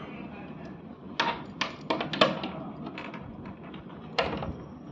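Indistinct voices mixed with a series of short, sharp clicks and knocks, clustered from about a second in to the middle, with one more near the end.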